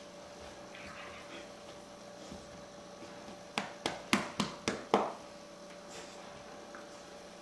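A puppy play-wrestling with a person on a carpet: a quick run of about six sharp clicks and knocks a little past halfway, over a steady faint electrical hum.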